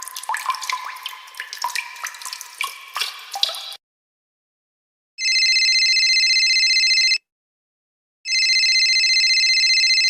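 A rapid run of quick watery plinks and drips lasting about three and a half seconds. After a short gap come two bursts of a high electronic ringing tone, each about two seconds long and a second apart.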